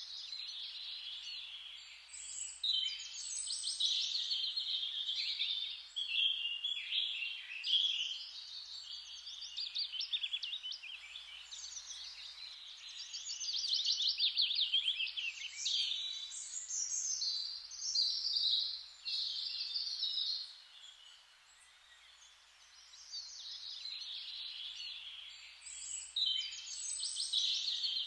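A chorus of several songbirds singing at once: overlapping rapid trills and warbled phrases, easing off briefly about three-quarters of the way through before picking up again.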